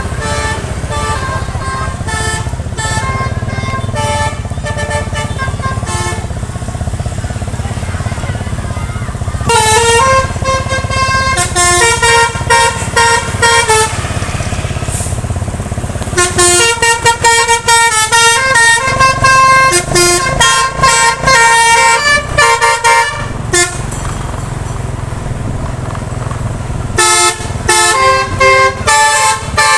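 Bus 'basuri' musical air horns (telolet) playing quick stepping melodies in several loud runs with short pauses between, over the steady low rumble of the bus engines.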